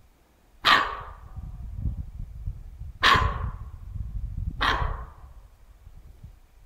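A deer barking three times, short hoarse alarm barks a couple of seconds apart, each starting sharply and dying away quickly. A low rumble sits under the barks.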